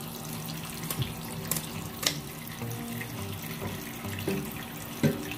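Kitchen tap running in a low, steady stream into a sink, with a few sharp clicks, the loudest near the end, and background music underneath.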